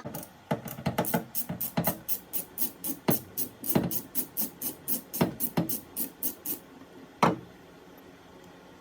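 Half-inch ratchet with a 14 mm socket clicking in a quick, even run of about four clicks a second as it loosens a wiper-arm nut, stopping a little over six seconds in. One sharper single click follows about a second later.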